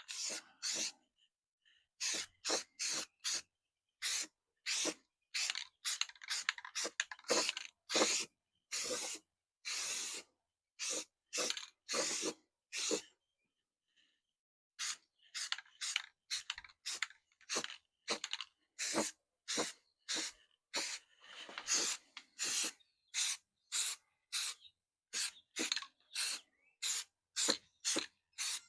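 Aerosol can of primer spraying in many short hissing bursts, with brief pauses between passes.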